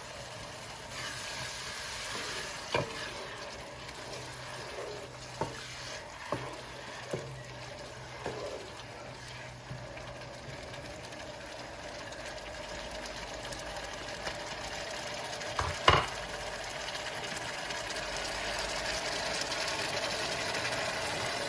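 Chopped onions bubbling and sizzling in a cooking pot, growing slowly louder, with a few sharp taps of a spoon against the pot.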